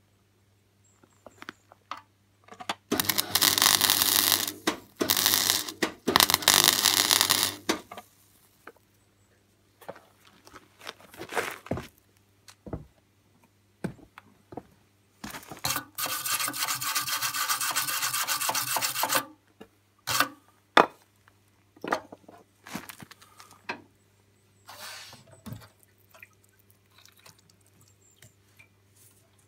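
MIG welder arc crackling in two runs, the first broken by short pauses and the second steady for about four seconds, as a small leak hole in a metal garden-tractor fuel tank is welded shut. After that come scattered short scrapes and knocks.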